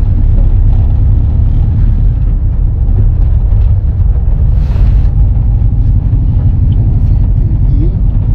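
VW Kombi driving at low speed, heard from inside the cab: a steady, loud low rumble of engine and road noise.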